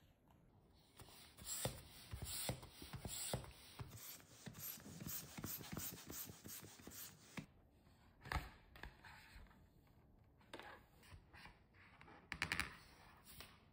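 Hand balloon pump pushing air into a latex balloon in short puffing strokes, a few spaced out and then a quicker run, with the rubber balloon rubbing against the hands as it is handled.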